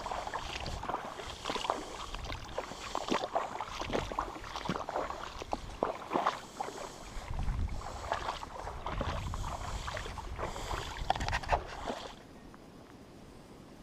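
Irregular knocks and clatter over a low rumbling noise, cutting off abruptly about twelve seconds in and leaving a faint steady hiss.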